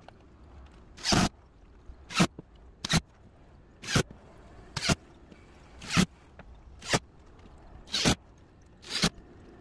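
Cordless drill driving screws into a 3/4-inch plywood subfloor: nine short whirring bursts, about one a second, each rising quickly and stopping as the screw seats.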